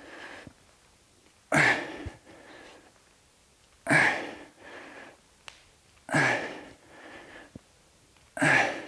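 A man breathing out hard through the mouth four times, about every two and a half seconds, once per rep of a front-loaded dumbbell squat, with a softer breath after each.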